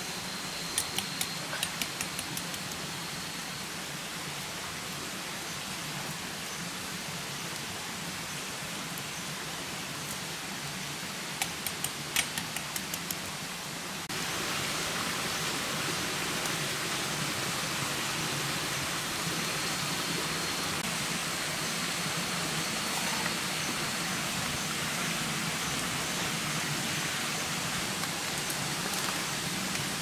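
Open wood fire burning under meat cooking on a flat stone: a steady hiss with two short runs of sharp crackles, about a second in and again about twelve seconds in. The hiss grows louder about fourteen seconds in.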